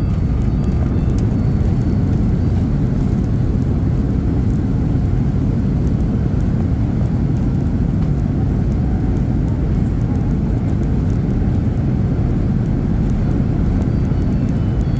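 Steady low rumble inside a jet airliner's cabin as it rolls along a wet runway after landing.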